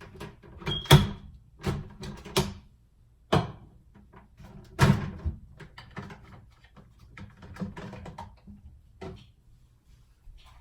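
A series of sharp knocks and clatters from things being handled in a kitchen while coffee is made, with a brief ringing clink about a second in. The loudest knocks fall about a second and about five seconds in.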